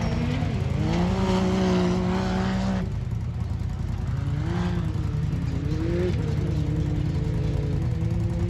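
Off-road race vehicle's engine revving: it climbs and holds high revs, drops off about three seconds in, then picks up again in several shorter pulls.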